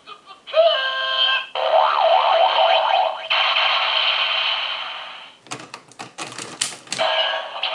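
Electronic sound effects from a Kyoryuger sound toy's small speaker: a pitched tone, a warbling effect and a hissing blast that fades away, followed near the end by a quick run of sharp plastic clicks.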